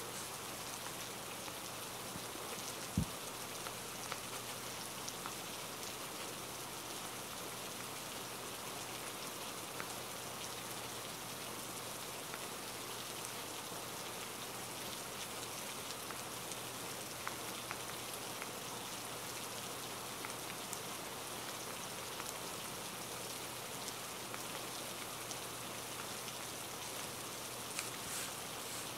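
Steady rain falling, an even hiss of raindrops with scattered faint ticks, and a single low thump about three seconds in.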